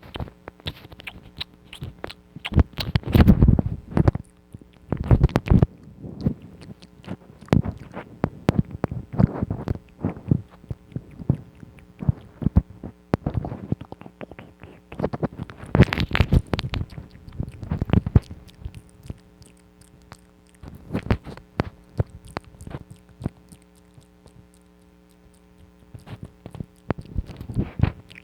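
ASMR mouth sounds close to the microphone: irregular runs of wet clicks and smacks, coming in clusters with short pauses and a quieter stretch near the end, over a faint steady hum.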